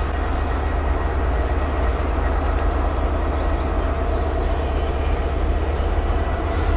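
Class 66 diesel locomotive, an EMD two-stroke V12, running with a steady low rumble as it moves its train of HYA hopper wagons slowly.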